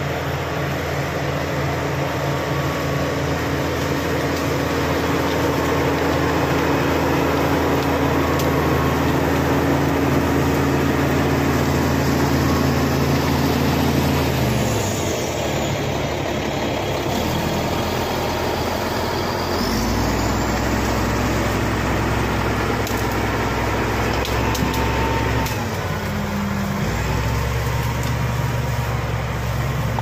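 Shantui SD16 crawler bulldozer's diesel engine running under load as it pushes brush and earth. Its pitch drops about halfway through, rises again a few seconds later, and dips briefly once more near the end.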